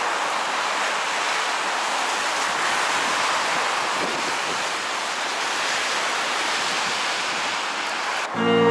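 Steady rushing outdoor noise of a city street. Near the end it is cut off suddenly as music starts.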